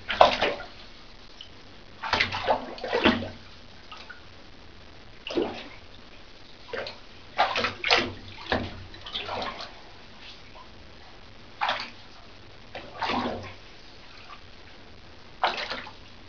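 A cat splashing its paws in shallow water in a bathtub, in irregular bursts of sloshing with quiet gaps between them.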